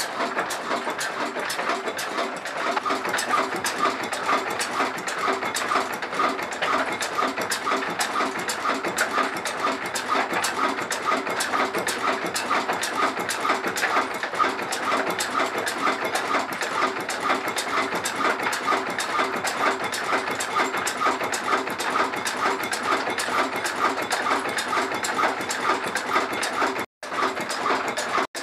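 Ruston Hornsby stationary diesel engine running steadily with a regular beat.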